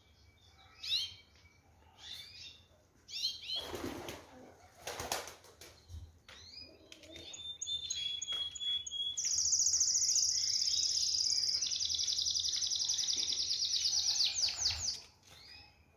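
Domestic canary singing: scattered chirps and short phrases, then from about nine seconds in a loud, very rapid trill held for about five seconds, ending in a few falling sweeps. Two brief rustling bursts about four and five seconds in.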